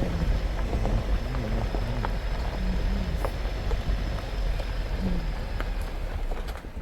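Off-road vehicle driving slowly over a rough dirt trail: a steady low engine and road rumble with scattered knocks and rattles.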